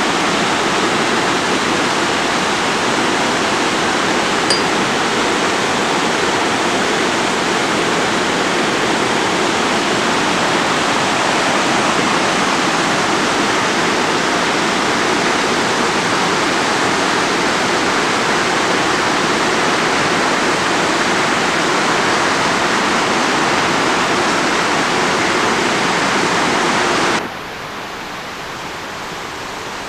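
Steady, even rush of running water. Near the end it drops abruptly to a quieter, duller hiss.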